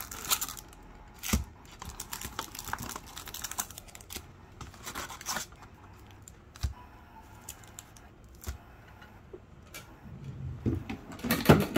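Foil trading-card packs crinkling and rustling as they are handled and pulled from a cardboard hobby box, with scattered light clicks and taps as they are set down. A short squeak near the end is the loudest sound.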